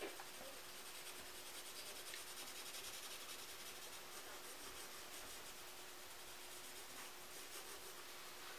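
HB graphite pencil shading on paper: a faint, continuous rubbing of pencil strokes.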